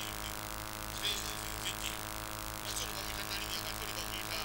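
A steady hum made of several held tones, with scattered, indistinct voices from a crowd.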